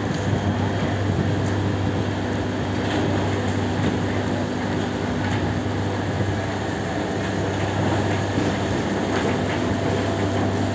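Heavy machinery of a sugar factory's cane unloading yard running steadily: a constant low hum with a few steady tones above it and occasional faint clinks.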